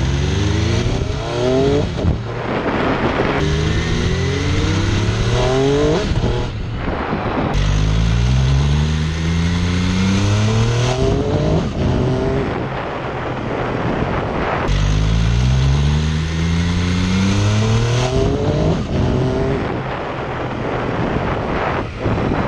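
MV Agusta F3's inline-three engine accelerating hard through the gears, its note rising with the revs and dropping back at each upshift, several times over.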